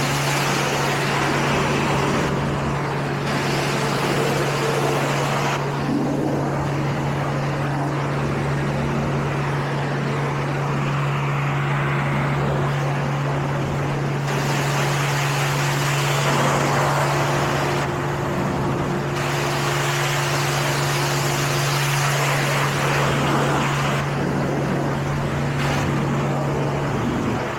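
Car wash water spray hissing against a car's body, swelling and easing every few seconds, over a steady low machine hum.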